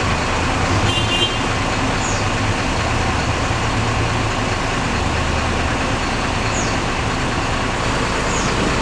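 Scania K410 coach engine running steadily with a low hum, under a continuous wash of road and tyre noise.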